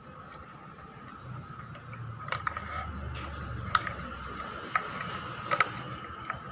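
Light plastic clicks and taps from hands handling a handmade PVC miniature truck cab and its small parts, about half a dozen sharp clicks, two of them close together near the end. A faint steady high tone runs underneath.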